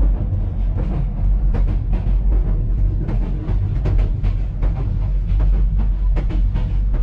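Interior running noise of a PT INKA-built passenger coach at speed: a loud, steady low rumble from wheels and bogies, with irregular clicks and knocks as the wheels pass over rail joints.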